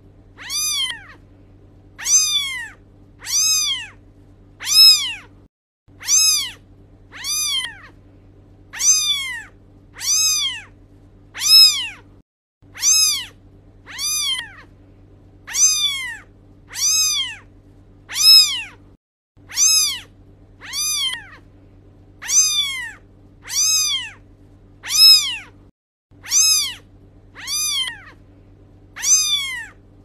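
Kitten meowing over and over: the same short, high meow that rises and falls in pitch, repeated at even spacing about three times every four seconds, with a faint steady hum beneath.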